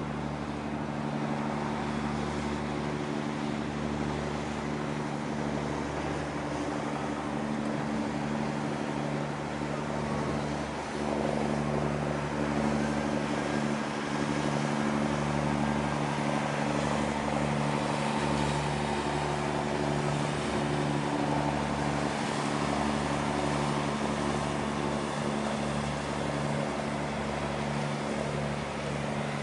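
Harbour tugboat's diesel engines running with a steady low drone as it passes, growing a little louder about eleven seconds in.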